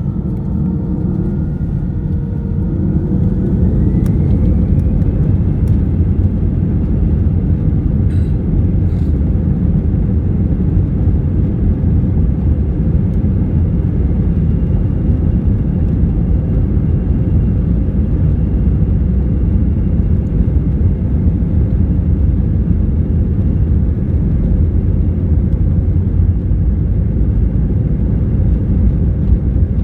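Airbus A320's jet engines spooling up to takeoff thrust, heard inside the cabin: a rising whine over the first few seconds, then a loud steady engine drone and rumble as the airliner rolls down the runway.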